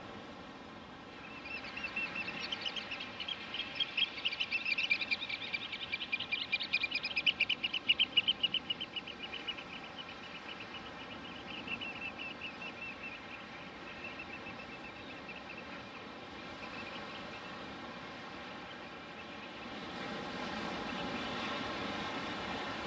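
Quadcopter drone's motors humming steadily, with a bird's rapid trilling calls over it from about a second in until about two-thirds through, loudest about eight seconds in.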